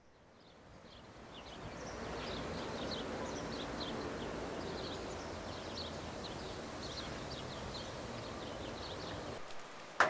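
Birds giving many short, high chirps over a steady rushing outdoor background that fades in over the first two seconds. The background cuts off shortly before the end, followed by a sharp click.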